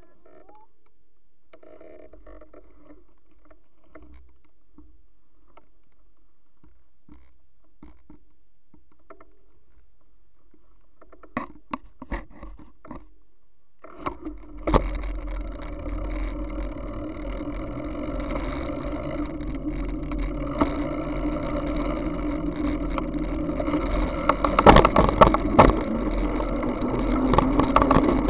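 Wind rushing over a bicycle-mounted camera's microphone, with tyre and road noise as the bike rolls along an asphalt road. It starts suddenly about halfway in, after a few clicks and knocks, and grows louder toward the end.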